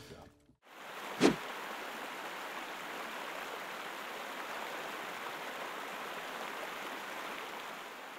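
Steady rush of a river running over rapids, with a single loud thump about a second in; the water starts to fade near the end.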